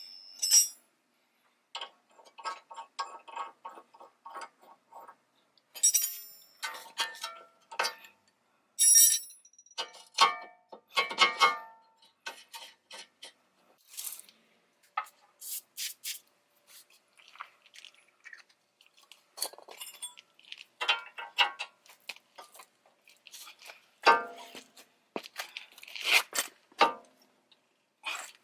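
Metal hand tools clinking and clicking against steering parts in short, irregular runs, with a stretch of quick repeated clicks about two to five seconds in, during tie rod end and rack-and-pinion removal.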